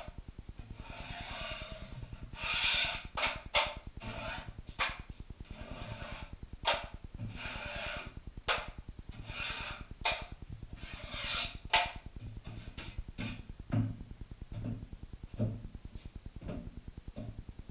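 Steel drywall knife scraping setting-type joint compound (hot mud) off a hawk and along metal corner bead: a series of short scrapes with sharp taps between, fewer and fainter in the last few seconds, over a steady low hum.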